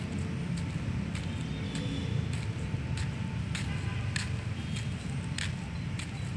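Footsteps on pavement at an unhurried walking pace, a light scuffing step about every half second or so, over a steady low outdoor rumble.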